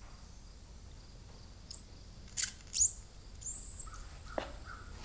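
Compressed air escaping from a pipe fitting as it is loosened with a wrench: a few short, sharp hisses and squeals, some sliding in pitch, about halfway through. The air pressure is being bled out of the plumbing.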